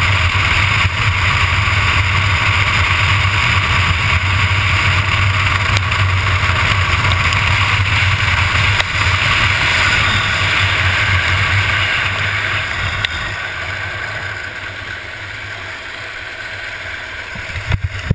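Wind rushing over the microphone and a street luge's wheels rolling on asphalt at speed: a loud, steady rush with a low rumble that fades over the last several seconds as the sled slows to a stop, with a few knocks near the end.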